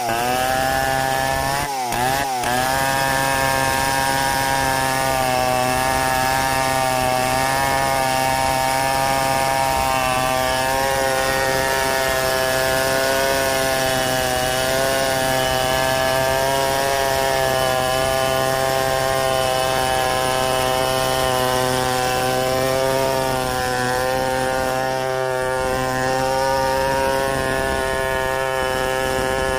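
Stihl 070 two-stroke chainsaw running at high revs while ripping a log lengthwise, freehand milling. The engine pitch wavers briefly near the start, then holds steady under the load of the cut.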